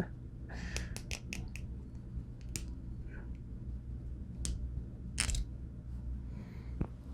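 Metal clicks of a balisong (butterfly knife) being handled: a quick run of clicks early, then a few single clicks spaced out.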